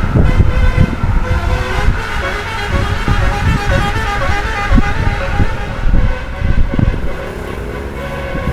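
Bus 'telolet' multi-tone musical horn playing a quick stepping melody of short notes, over a loud, uneven low rumble.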